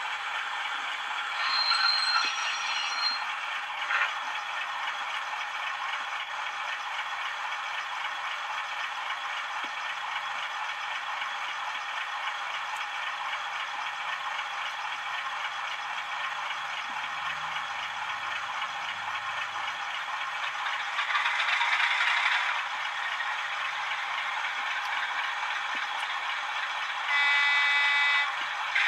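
Several OO gauge model diesel locomotives (a Class 37, three Class 50s and a Class 66) ticking over together, their DCC sound decoders playing idling diesel engine sounds through small onboard speakers as a steady, thin drone. A louder patch rises over it about 21 seconds in, and a short pitched tone sounds near the end.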